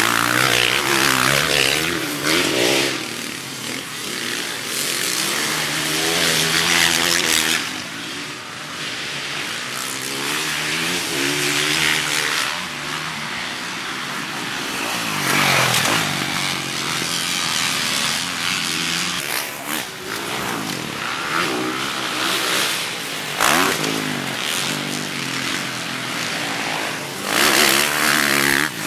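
Several motocross dirt bikes racing on a dirt track, their engines revving up and falling back again and again, growing loudest each time a bike passes close.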